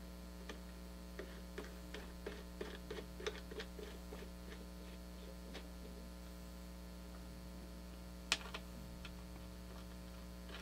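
Steady electrical mains hum, with light clicks and ticks of the CPU water block's mounting hardware being handled on the motherboard, busiest in the first few seconds, and one sharper click about eight seconds in.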